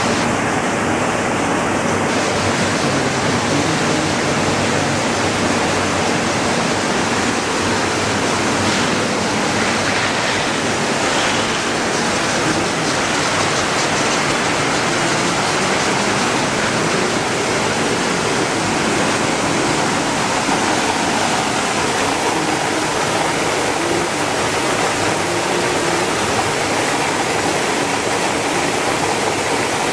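Steady rushing noise of a running belt-type watermelon-seed color sorting line, its conveyor and sorter machinery going without letup.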